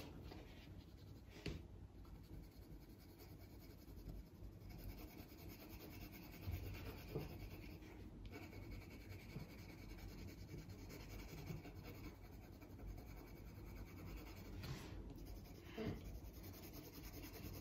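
Colored pencil scratching faintly on paper as she layers color over a base coat.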